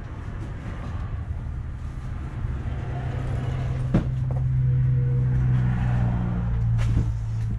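A motor vehicle's engine running, a low steady hum that grows louder over several seconds, with one sharp knock about halfway through.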